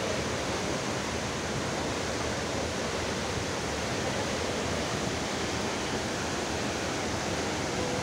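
Athirappilly Falls, a large waterfall: the steady, even rush of water falling onto rock.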